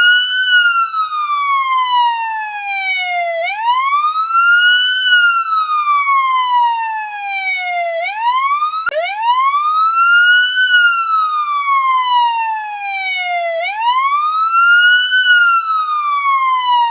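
Police siren sounding its wail: the tone rises quickly and then falls slowly, repeating about every four and a half seconds. There is a brief click about nine seconds in where one rise starts abruptly.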